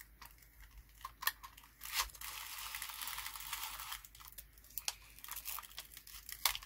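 A paper strip being pulled through a Xyron X150 sticker maker: a steady crackling hiss for about two seconds as the strip and its adhesive backing are drawn out, with light clicks and rustles of handling the plastic machine before and after.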